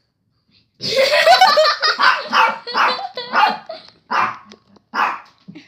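A dog barking over and over, a rapid string of separate barks that starts about a second in.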